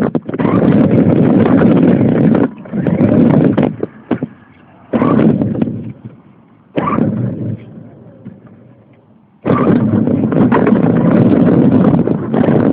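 Radio-controlled car driving, picked up by a phone strapped to it: loud rumbling and rattling with wind on the microphone. It drops away twice in the middle, each time with short surges that fade out, then comes back at full strength about three quarters of the way through.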